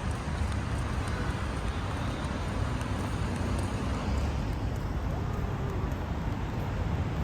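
City street noise: a steady rumble of road traffic, with wind on the microphone.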